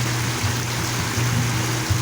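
Water fountain splashing steadily, with background music whose low notes repeat about every 0.7 s.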